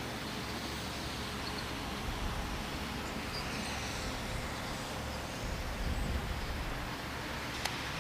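Wind buffeting the microphone over a steady outdoor noise, with gusts of low rumble about five to six seconds in and a single short click near the end.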